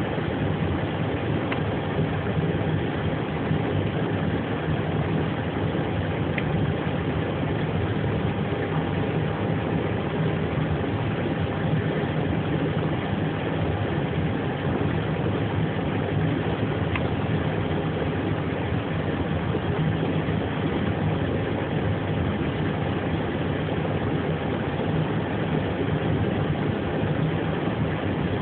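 Steady, unchanging drone of an Airbus airliner's running machinery during a ground reposition, with a faint constant tone over it.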